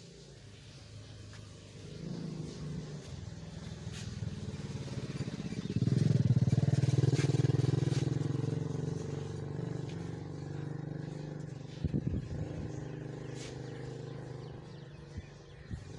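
A motor vehicle's engine running as it passes: a steady hum that grows louder from about two seconds in, is loudest around six to eight seconds, then slowly fades.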